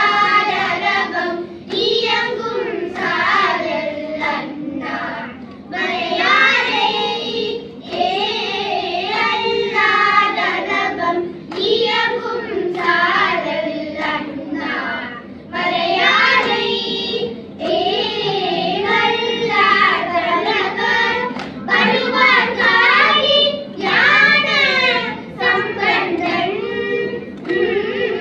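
A group of children singing Tamil devotional hymns together, phrase after phrase with sliding, ornamented melodic lines and brief breaths between phrases.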